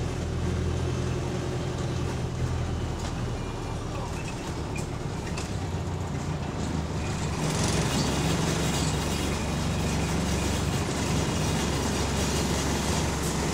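Single-deck bus heard from inside the saloon: the diesel engine running with a steady low hum while interior panels and fittings rattle along with it. About seven and a half seconds in the engine note grows louder as it pulls harder.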